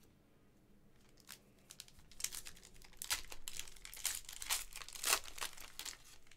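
Foil wrapper of a 2020-21 Panini Recon basketball card pack crinkling as it is torn open. It starts about two seconds in, after a couple of light clicks, and goes on in a quick run of sharp crackles until near the end.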